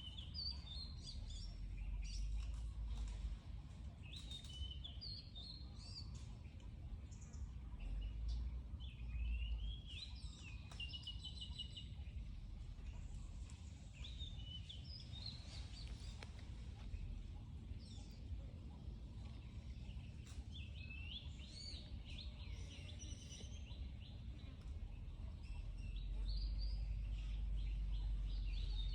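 Small birds chirping in short, warbling phrases over a steady low rumble of outdoor ambience, which grows louder near the end.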